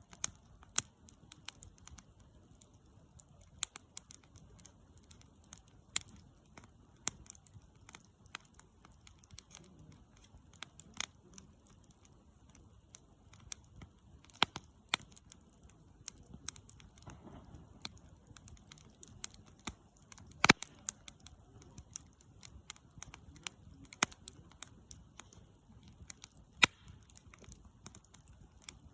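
Wood campfire crackling, with irregular sharp pops scattered throughout; the loudest pop comes about twenty seconds in.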